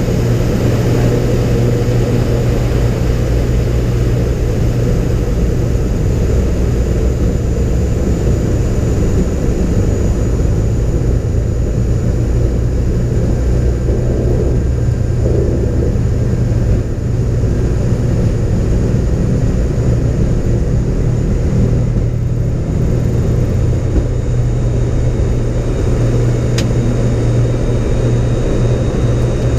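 ATR 72-500 turboprop's two Pratt & Whitney PW127 engines and six-blade propellers at takeoff power, heard from inside the cockpit as a loud, steady low propeller drone with engine and airflow noise over it through the takeoff roll and liftoff.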